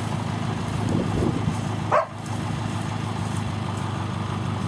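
Truck engine idling steadily. A dog gives a short bark or yelp that sweeps up in pitch about two seconds in, with a fainter one about a second in.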